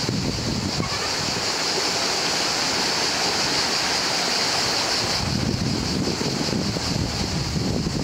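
Shallow river water running over stones, with a steady high hiss and wind buffeting the microphone in gusts, the buffeting heaviest from about five seconds in.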